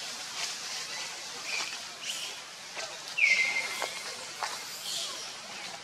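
Outdoor tree-canopy ambience of animal calls: scattered short, high chirps, and about three seconds in one clear whistled call that falls in pitch and lasts under a second.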